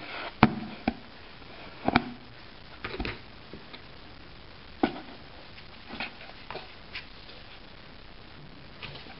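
Cardboard box knocked and scraped by Persian cats' paws, a string of irregular sharp taps, the loudest about half a second and two seconds in.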